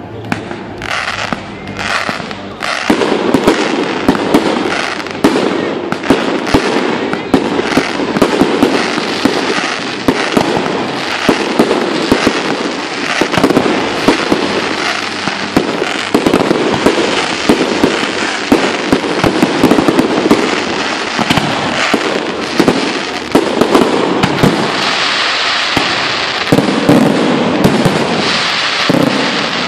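Fireworks display: aerial shells bursting in a rapid, continuous barrage of bangs and crackling, growing louder and denser about three seconds in.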